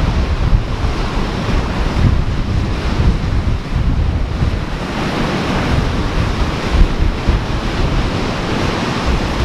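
Ocean surf washing, with wind buffeting the microphone in uneven gusts. The wash swells up about halfway through.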